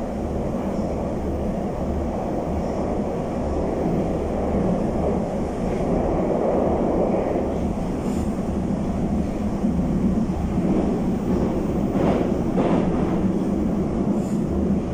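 Steady running noise inside a Moscow Metro 81-775/776/777 car travelling through the tunnel: a dense low rumble of the wheels and running gear, with two short knocks about twelve seconds in.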